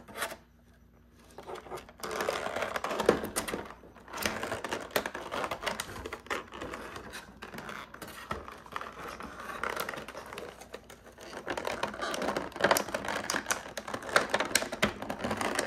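Thin clear plastic blister tray crackling and clicking as an action figure is handled and worked loose inside it. It starts after a quiet second or two and becomes a dense, irregular run of small crackles.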